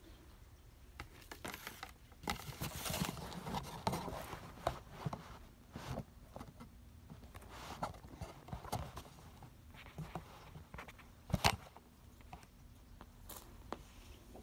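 Irregular rustling and scuffing from a cat playing on carpet, with its fur brushing close against the phone's microphone. There is one sharp knock about eleven seconds in.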